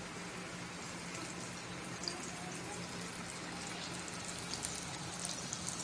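Flour-coated chicken leg deep-frying in hot oil: a steady sizzle with scattered crackles and pops, more of them in the second half.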